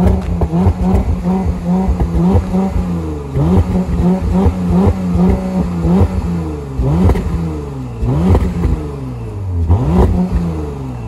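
2021 Porsche Macan S's 3.0-litre twin-turbo V6 exhaust out of dual twin tailpipes, idling and repeatedly blipped, the revs rising and falling back about every second or so.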